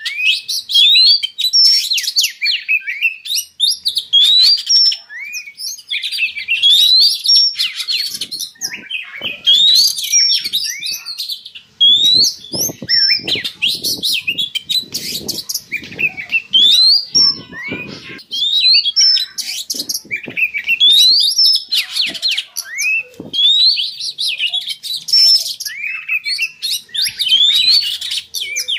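Oriental magpie-robin (kacer) singing its mating song, used as a lure to bring kept birds into breeding condition. The song is loud and continuous, made of quick rising whistled notes repeated phrase after phrase. Lower, rougher notes join in for several seconds in the middle.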